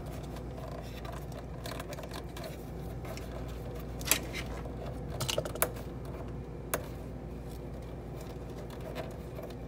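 Light plastic clicks and rattles of hands unclipping a refrigerator's wiring cord from its plastic retaining clips, with a handful of sharp clicks between about four and seven seconds in, over a steady low hum.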